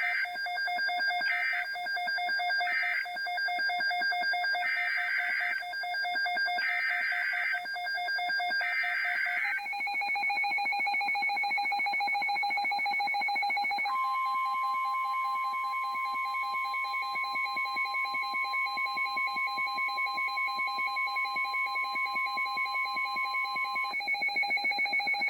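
NOAA Weather Radio alert signalling: three short digital data bursts (SAME end-of-message codes), then three longer, one-second SAME header bursts. About five seconds later comes the 1050 Hz weather radio warning alarm tone, one steady pure tone held for about ten seconds. Steady whistling tones sit underneath and shift pitch about nine seconds in.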